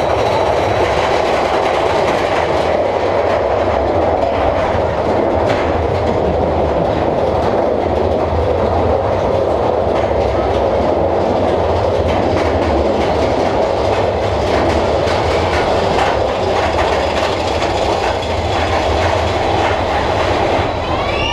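Mine-train roller coaster running on its track: the steady, loud rumble and clatter of the ride train's wheels heard from a seat on the train.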